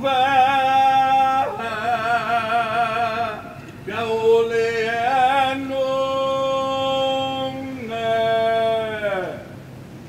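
A man's voice chanting a traditional Hawaiian oli in long held phrases, its pitch wavering on the sustained notes, with a short breath break partway through and the last phrase sliding down in pitch near the end.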